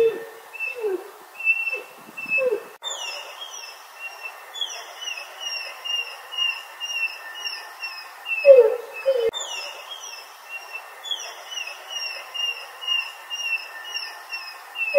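English bulldog whining in short falling notes, several in the first two and a half seconds and two more about eight and a half seconds in. A bird sings behind it throughout, a run of quick high falling chirps repeated two or three times a second.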